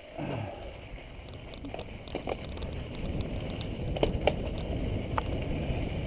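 Mountain bike rolling over a rocky dirt trail: a low rumble with sharp knocks and rattles from the bike, getting a little louder after about two seconds.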